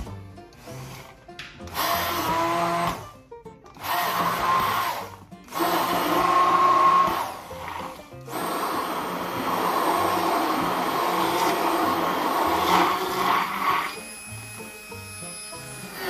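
Braun MultiQuick 9 immersion hand blender blending milk and bananas into a milkshake. It runs in several short pulses with brief stops during the first half, then runs continuously for about six seconds and becomes quieter near the end.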